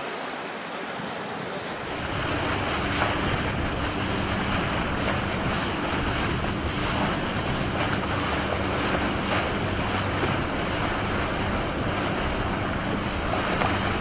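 Wind buffeting the microphone and water rushing past a moving motorboat. From about two seconds in, the boat engine's steady hum runs underneath.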